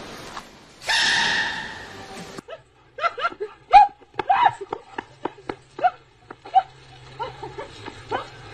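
A baby giant panda sneezes about a second in: a sudden, loud, high sneeze that dies away over a second or so. Then comes a quick run of short dog barks and yelps.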